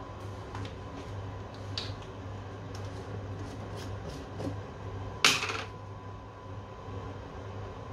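Plastic sample tubes and lab equipment being handled at a benchtop centrifuge: a few light clicks, then one sharp, louder clack a little past five seconds in. A steady low hum of lab equipment runs underneath.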